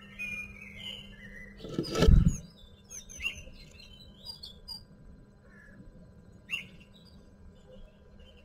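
Short, high bird chirps and peeps picked up inside a wooden nest box, with one loud bump and rustle about two seconds in.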